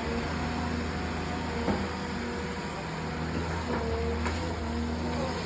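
Excavator's diesel engine running steadily, with a faint knock about a second and a half in and a few short squeaks.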